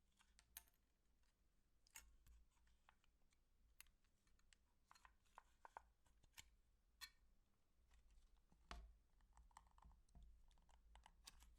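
Faint, irregular small clicks and crackles, scattered one to two a second, the clearest about two seconds in and again near nine seconds.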